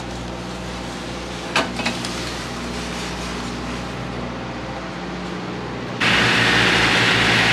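Steady mechanical hum with a brief clank about one and a half seconds in; near the end it cuts abruptly to a much louder steady rushing noise.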